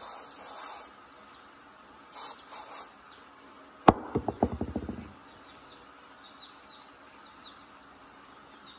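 Gloved hands squeezing and rubbing an oiled UNI foam air filter, with short rustling squishes twice in the first three seconds. About four seconds in there is a sharp knock followed by a quick rattle of ticks lasting about a second. Faint repeated high chirps run underneath.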